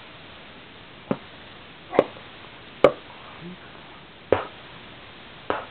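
A person making short, sharp "pa" lip pops with puffs of breath, five in a row about a second apart.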